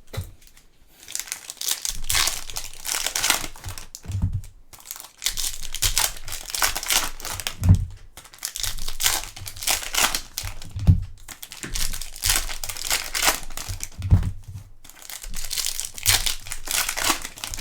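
Plastic wrapping of trading card packs crinkling and tearing as it is handled and opened, in repeated bursts, with a soft thump about every three seconds.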